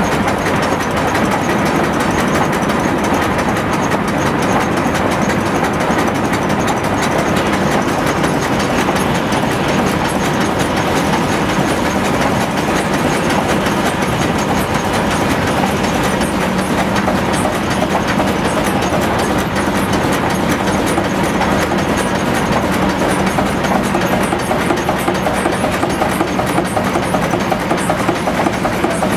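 Atlas horizontal stationary steam engine running at a steady speed, a continuous dense mechanical clatter from its moving parts with a steady low hum underneath.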